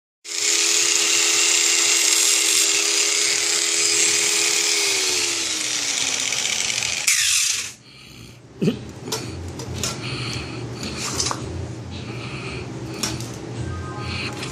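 Angle grinder with a cut-off wheel cutting metal exhaust parts: a loud, steady high whine over a harsh hiss. About five seconds in, the whine sinks in pitch as the motor slows, and after a short burst about seven seconds in, quieter rough noise with scattered knocks follows.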